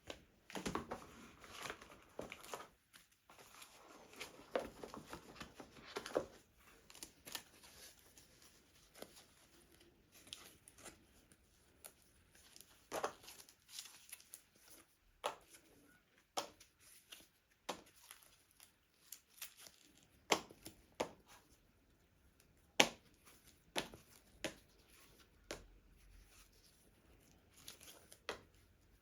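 Plastic wrap being torn and crinkled off a card game box, busiest in the first few seconds. After that come scattered sharp clicks and taps as the box and cards are handled.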